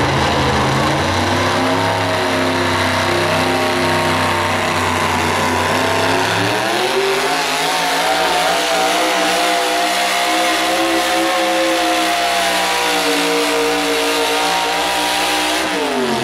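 Supercharged engine of a 1989 Ford modified 4x4 pulling truck running flat out under load while dragging a pulling sled. Its pitch holds for about six seconds, climbs sharply, stays high, then falls near the end as the pull finishes.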